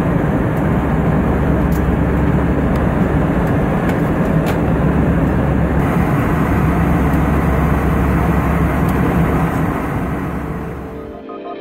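Loud steady cabin noise inside an Airbus A320 airliner: a deep engine and airflow rumble that fades out near the end.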